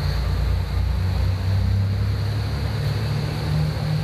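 JR Kyushu KiHa 220 diesel railcar's engine running as it pulls away from the platform, its low engine note stepping up in pitch about three seconds in as it gathers speed.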